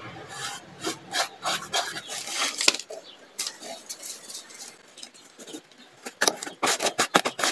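Rubbing and scraping of a small paintbrush spreading wood glue over a cardboard box, then cotton fabric being laid on and smoothed down by hand, with a quick run of rubbing strokes near the end.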